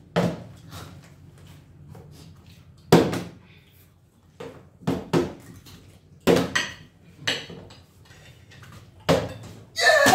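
Plastic water bottle, partly filled, being flipped and landing on a wooden tabletop: a string of sharp knocks and clatters, about six over ten seconds.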